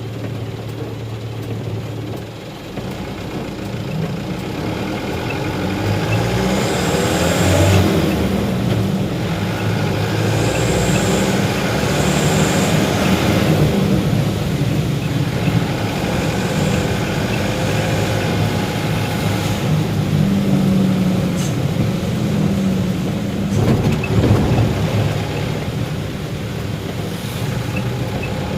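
A truck's engine running as it drives, its pitch shifting up and down. Brief high hisses come a few times in the first half.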